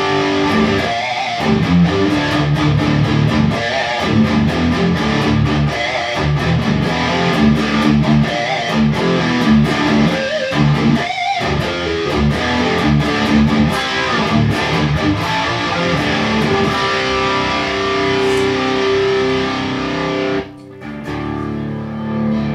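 Kramer Pacer electric guitar played through a Boss SD-1 overdrive into a Peavey Windsor amp with chorus added, a distorted rock riff of quick picked notes and held chords. It stops briefly about twenty seconds in, then a chord rings out.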